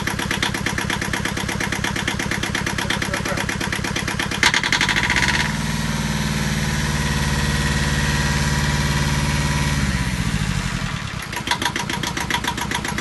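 Small inboard marine engine in a yacht's engine bay idling with an even pulsing beat. About four and a half seconds in it is revved up to a steady, higher run for about five seconds, then drops back to idle.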